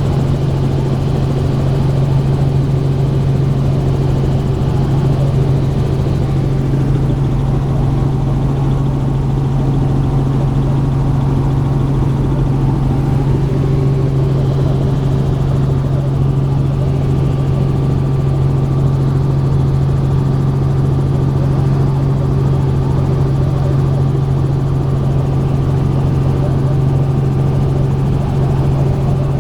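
Helicopter in flight heard from inside the cabin: a loud, steady drone of rotor and engine with a strong low hum that does not change.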